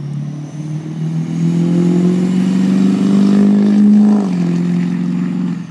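Duramax V8 turbodiesel pickup under hard acceleration, its engine note climbing steadily in pitch, dropping back about four seconds in, then falling away near the end. A faint high whistle rises along with the engine.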